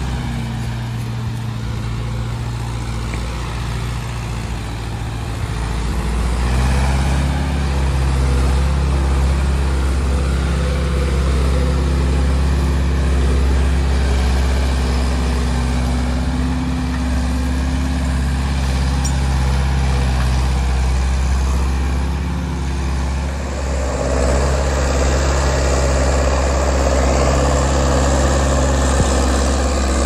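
Diesel engine of a John Deere log skidder running steadily as the machine drives along a skid trail, getting louder about six seconds in and again near the end as it pulls harder.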